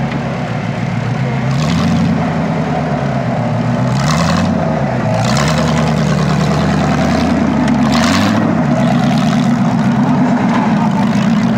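Off-road trial vehicle's engine working at low speed as it crawls over rocks, its pitch rising and falling several times. Several short hissing bursts break in over the engine.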